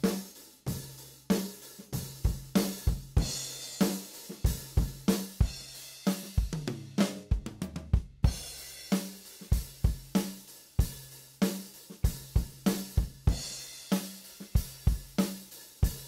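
Multitracked drum kit recording playing back: kick, snare and hi-hat keep a steady beat with cymbal wash. A quick fill comes a little past halfway, with a brief stop before the beat picks up again.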